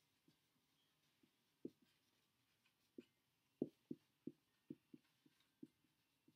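Dry-erase marker writing on a whiteboard: a run of soft, irregular taps as the tip strikes the board at the start of each stroke, thickest about halfway through.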